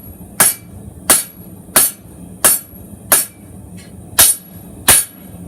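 Hand hammer striking hot steel on an anvil in a steady rhythm, about seven sharp blows roughly two-thirds of a second apart with a slightly longer pause midway, drawing out the point of a chef's knife blade.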